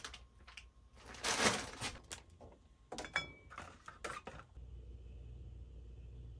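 Food containers being handled on a pantry shelf: a rustle about a second in, then a few light clinks and knocks of jars and boxes being moved. A low steady hum comes in after the middle.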